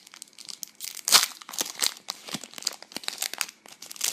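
Foil wrapper of a Pokémon Gym Heroes booster pack crinkling and tearing as it is opened by hand, a dense run of sharp crackles that is loudest about a second in.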